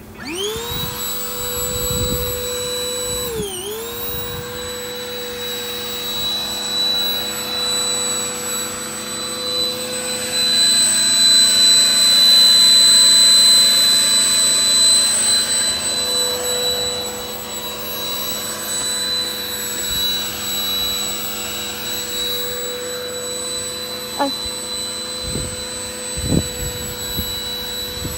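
Electric air pump switching on and spinning up to a steady whine, inflating a large inflatable camel pool float. A few seconds in, its pitch dips briefly and recovers.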